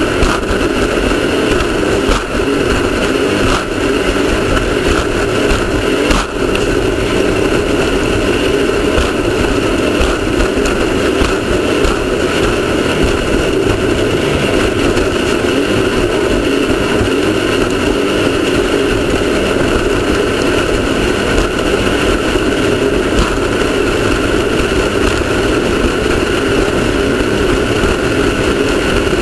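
Off-road race car's engine running at a steady, unchanging pace under a constant haze of road and wind noise, with a few short knocks in the first several seconds.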